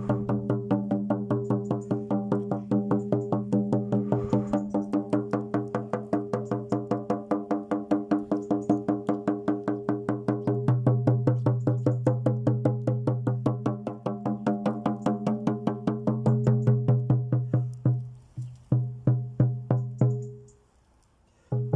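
Rhythmic music: a low droning tone rich in overtones, struck about five times a second, the strokes slowing and breaking off near the end.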